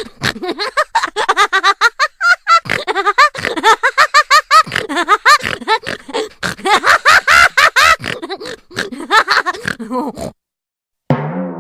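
Cartoon voice sound effect: a rapid string of short, voice-like syllables whose pitch bends up and down, like sped-up cartoon chatter or giggling, for about ten seconds. It stops suddenly, and after a brief gap a single plucked note starts near the end and rings on.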